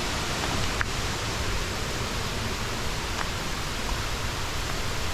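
Steady rushing of a small rainforest waterfall, water pouring over rock into the creek.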